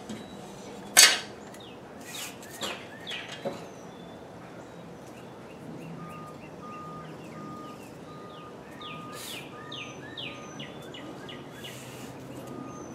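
Knocks and clanks of a VW Golf Mk4's AC condenser being worked free and lifted out from in front of the radiator: one sharp knock about a second in, then a few lighter ones. Later, birds chirp and a steady high beep repeats about twice a second.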